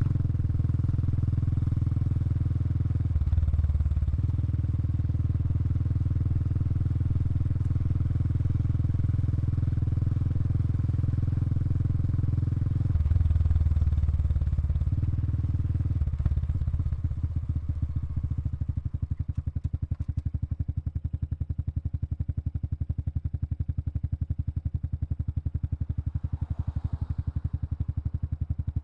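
Honda Super Cub 110 Pro's single-cylinder four-stroke engine running through its exhaust, holding steady revs with two small rises. About two-thirds of the way through it drops to a slower idle, where the separate exhaust beats can be heard.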